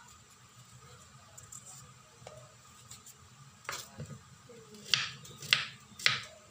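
Kitchen knife cutting a peeled potato on a wooden cutting board: a softer knock, then three sharp chops about half a second apart near the end.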